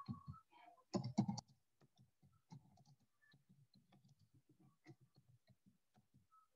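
Faint, quick keystrokes on a computer keyboard as text is typed, a steady run of small clicks with a few louder clatters around a second in.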